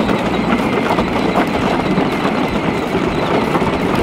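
Kids' battery-powered ride-on John Deere toy tractor driving across a wooden plank footbridge: its drive motor running and its plastic wheels rumbling over the boards.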